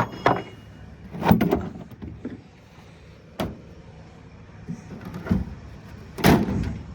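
Several loud, sharp knocks and clanks while a trailer is readied for loading, over the low steady idle of a warming-up skid steer engine.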